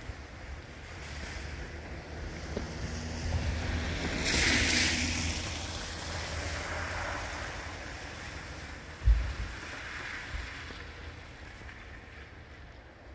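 Wind buffeting the microphone with a steady low rumble, and a hiss that swells and fades about four seconds in, like tyres on a wet, slushy road going by. A single dull thump a little after the middle.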